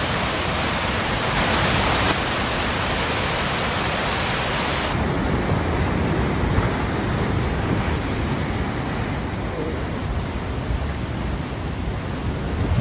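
Steady rushing roar of fast-moving floodwater. The sound shifts about five seconds in, when the top end drops back and the rush sounds duller.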